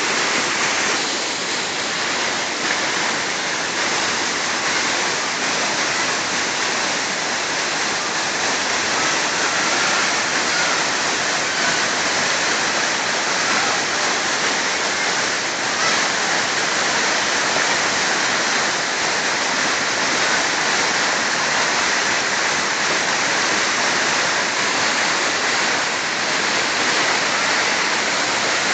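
Kedang Ipil waterfall: water pouring and splashing in a steady, loud rush that holds even throughout.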